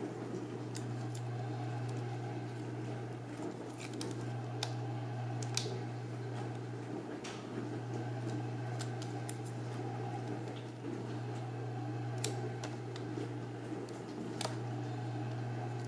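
Light, irregular clicks and ticks of fingers working a laptop display ribbon cable into the connector on the back of a replacement LCD panel, over a steady low hum.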